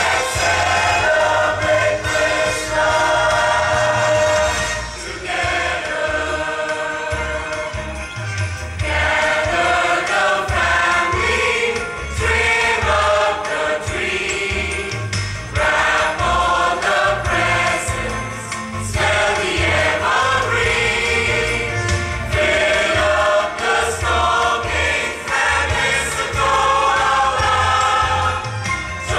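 Church choir singing a worship song in full voice over instrumental accompaniment with a low bass line, the singing moving in phrases with short breaks every few seconds.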